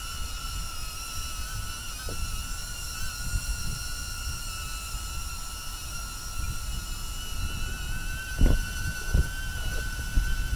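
Small quadcopter camera drone's propellers whining steadily overhead, with gusty wind rumbling on the microphone. Two short low thumps come near the end.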